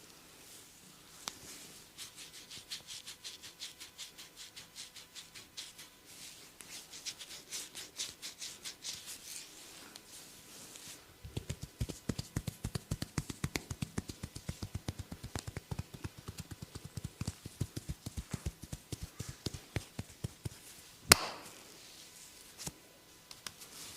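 Hands working rapidly in a massage: first quick, crisp rubbing strokes about four a second, then heavier rhythmic tapping or chopping blows on the body about five a second. One loud sharp crack about three seconds before the end.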